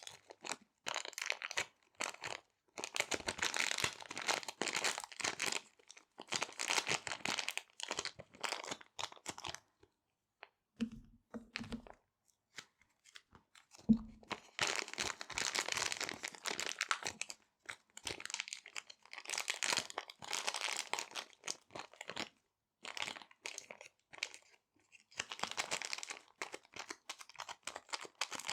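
Small resealable plastic bags handled close to the microphone: repeated bursts of crinkling and rustling plastic. About halfway through the crinkling pauses for a few seconds, broken only by a few soft thumps.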